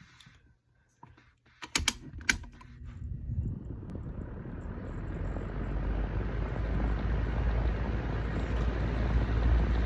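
A few sharp clicks, then a homemade mini ceiling fan made from a fidget spinner starts up and runs at low speed, a whirring rumble that builds steadily in loudness.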